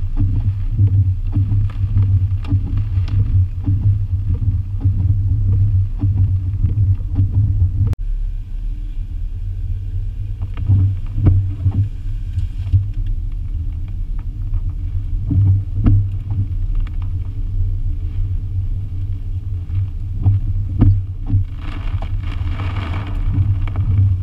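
Car driving through hurricane wind and rain: a steady low rumble with irregular thumps, and a brief rush of hiss near the end.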